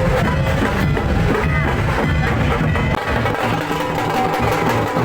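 Music playing loudly, with instruments.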